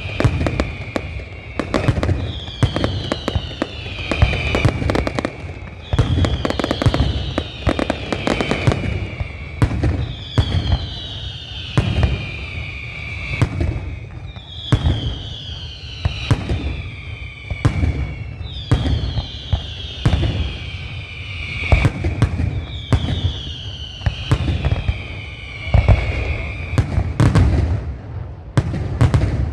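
Fireworks display: a dense run of sharp bangs and crackles, with a high falling whistle that repeats about every two seconds.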